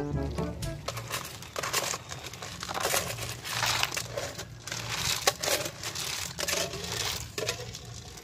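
A metal spoon scraping cooked rice out of a metal cooking pot: irregular scrapes and clinks of metal on metal, with one sharper clink about five seconds in.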